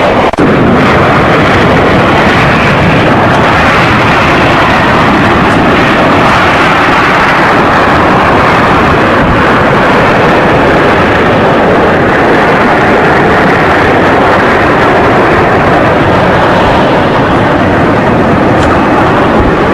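Boeing 727 jet engines running loud and steady as the airliner rolls down the runway after touchdown.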